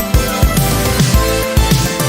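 Background electronic music with a steady, punchy beat of deep falling bass-drum hits.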